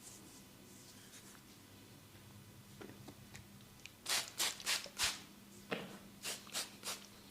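Hands rubbing and brushing over hair and scalp during a head massage: faint at first, then a run of about eight short, quick rubbing strokes in the second half.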